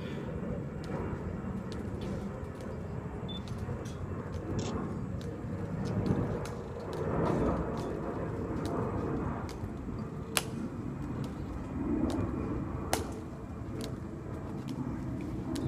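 Steady low outdoor rumble with a few sharp clicks of ceremonial guards' heels on a stone plaza; the two loudest come about ten and thirteen seconds in.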